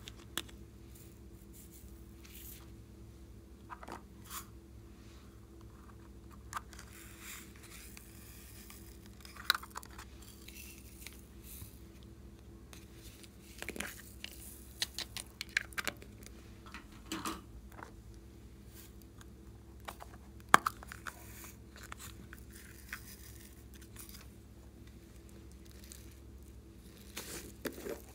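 Slime being kneaded and mixed by hand, with irregular sticky crackles and pops, over a faint steady hum.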